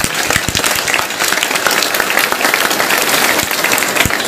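An audience of schoolchildren and teachers applauding: many hands clapping steadily and densely.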